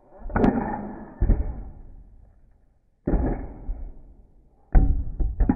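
Separator on a 3D-printed model rocket firing in tests: sudden thumps, each fading over about a second, as the capsule is pushed off the launcher stage, then a quick run of sharp plastic knocks near the end.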